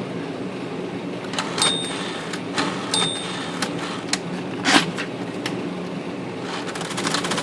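Smith Corona all-power electric typewriter with its motor running steadily, and mechanical clicks and clunks from the freshly repaired power return mechanism being tried. Two of the clicks carry a short high ring, and the loudest clunk comes just before five seconds in. Near the end a fast, even clatter of clicks starts.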